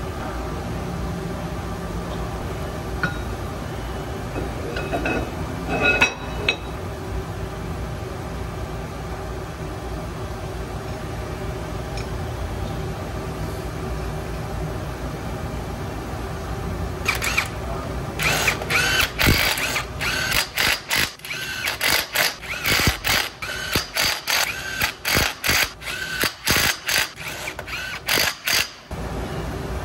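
Cordless power driver with a socket extension running in a long series of short trigger bursts, spinning in and tightening the bolts of a forklift wheel-hub cap. Before it starts, about halfway through, there is only a steady shop hum with a few metal clicks.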